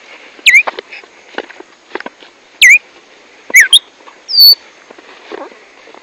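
Caged black-striped sparrow (tumba yegua, tico tico) calling: five loud, sharp whistled notes that sweep down and flick up at the end, two of them close together, the last a short high steady whistle. Faint taps and rustles sound between them.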